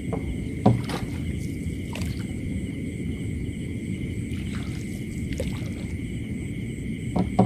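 A steady low rumble under a constant high drone of night insects, broken by a few short knocks, the loudest about two-thirds of a second in and another near the end.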